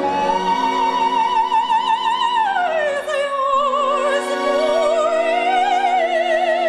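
Operatic soprano singing a long high note with wide vibrato. About two and a half seconds in she slides down, then climbs back up, over sustained accompaniment chords.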